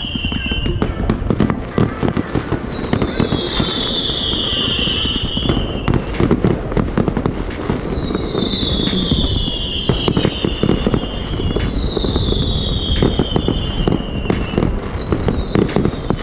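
Fireworks display: whistling fireworks, with four long whistles spaced a few seconds apart, each gliding down in pitch, among a steady run of sharp cracks and bangs.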